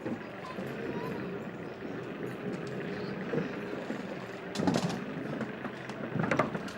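Electric skateboard rolling along a park path: a steady noise of the wheels and drive running, with two louder knocks or jolts a little after the middle and near the end.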